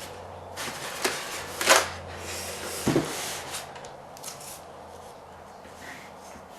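Cardboard box and paper packaging being handled: rustling with several sharp knocks in the first three seconds, the loudest a little under two seconds in, then quieter shuffling.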